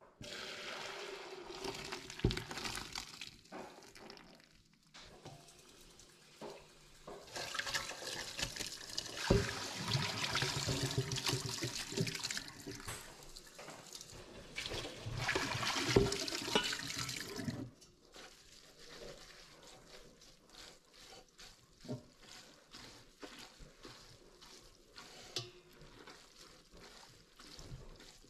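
Starchy noodle-cooking water poured from a pot through a stainless mesh strainer into a sink for a few seconds, then a tap running into a steel pot for about ten seconds. After the tap stops, only faint small water and handling sounds as gloved hands toss the wet rice noodles in the strainer.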